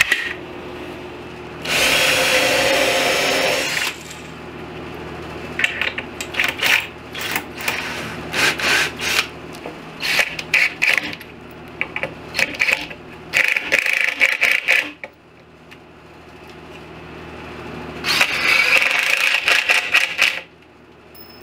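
Cordless drill running into a melamine particleboard cabinet panel: a steady run of about two seconds shortly after the start, many short trigger bursts through the middle, and another steady run near the end.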